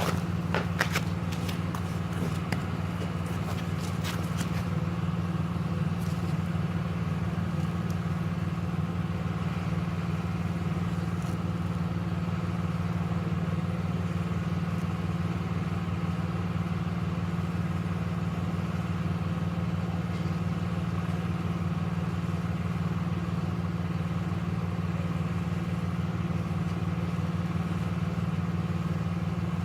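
A steady low mechanical hum, like an engine or motor running at idle, with a few sharp clicks and knocks in the first few seconds.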